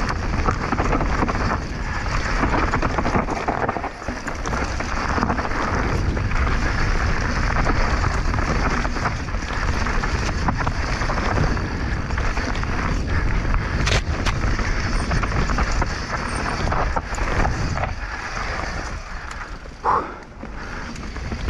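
Mountain bike rolling fast down a dirt trail: tyres on rough ground and wind rushing over the microphone, with one sharp knock about two-thirds of the way in.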